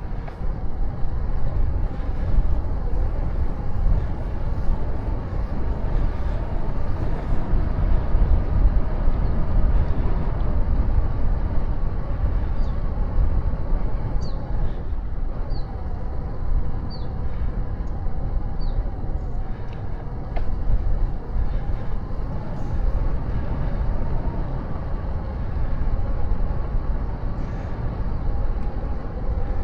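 Steady low rumble of wind and road noise on the microphone of a camera riding along on a bicycle. A few short, faint high chirps come about a second and a half apart midway through.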